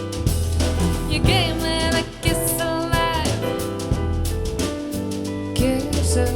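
Soul jazz music with drum kit, a steady bass line and a lead melody with vibrato, played back through an in-ear monitor for a sound comparison.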